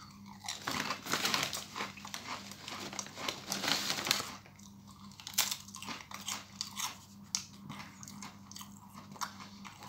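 A person biting into and crunching a ridged potato crisp close to the microphone. The dense crunching lasts about four seconds, then gives way to quieter chewing with scattered small crunches.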